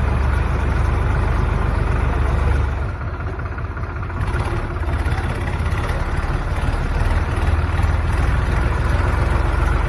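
Tractor's diesel engine running steadily as the tractor carries people through floodwater, a low pulsing drone that eases slightly for about a second around three seconds in.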